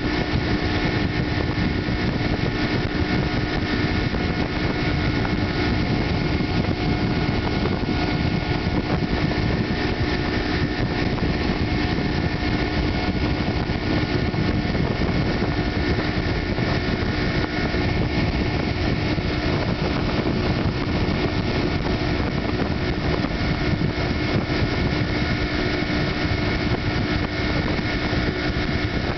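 Tow boat's outboard motor running steadily under constant throttle, a continuous engine hum over an even hiss of wind and rushing water.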